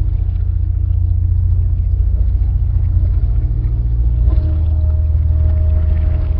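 Loud, low rumbling drone with faint steady hums above it. About four seconds in it shifts, with a click and a steady higher tone coming in.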